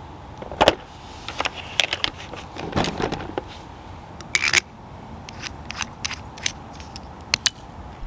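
Clicks and knocks of a cordless drill and hand tools being set down and handled on a plastic workbench, the loudest knock under a second in, with a short scrape about four and a half seconds in.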